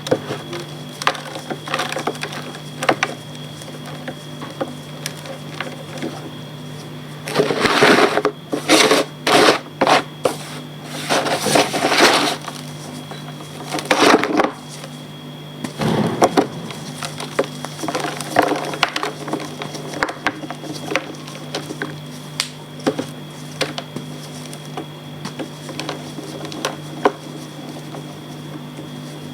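Reformed gym chalk being crumbled and crushed: scattered crackles and crunches, with a run of louder, denser crunching about a third of the way in and another burst shortly after.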